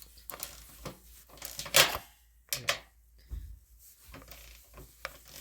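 Toolant 90-tooth 3/8-inch flex-head ratchet and 13 mm socket loosening a bolt on metal shelving: scattered clicks and knocks of the tool and metal. The loudest is a sharp clack about two seconds in, with two more just after it and lighter ticks later.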